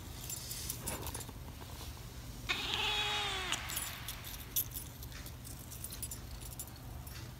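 A cat gives one drawn-out meow about two and a half seconds in, lasting about a second and falling in pitch at the end. Keys on a keychain jingle in short clicks as the cat paws at them.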